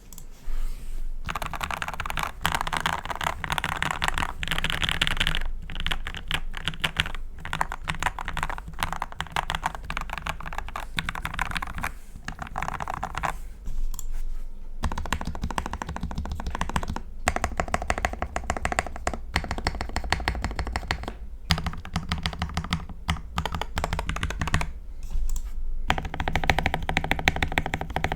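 Pulsar PCMK mechanical keyboard, heavily modded with lubed Gateron Yellow linear switches, tape mod and foam dampening under the PCB, with PBT keycaps: keys pressed in quick runs, one after another, in a key-by-key sound test, with a few short pauses.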